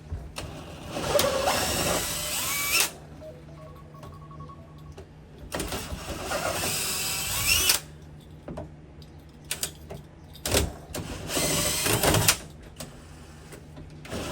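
Power drill running in three bursts of one to two seconds each, with a few knocks and clicks in between.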